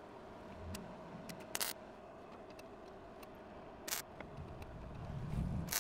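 Wire-feed welder arc burning steadily as a small steel part is tack-welded in a vise: a steady hiss and hum, broken by a few sharp pops.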